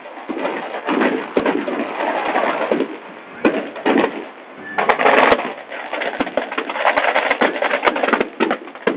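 Large bonfire burning, its wood crackling and popping continuously with many sharp snaps at uneven intervals and a denser burst of crackle about five seconds in.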